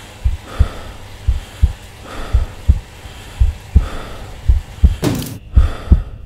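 Heartbeat sound effect, paired low beats about once a second, with heavy breaths between them. About five seconds in, a sudden whoosh swells up and cuts off sharply.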